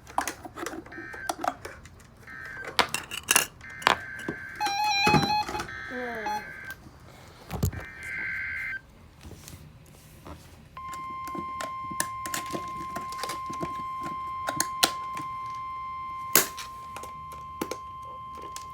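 Emergency Alert System tones on NOAA Weather Radio. Several bursts of SAME digital data, a warbling two-tone screech, fill the first nine seconds, marking the end of one alert and the header of the next. About eleven seconds in, the steady 1050 Hz weather-radio warning alarm tone begins. Sharp clicks and knocks run throughout, with a quick run of stepped electronic beeps about five seconds in.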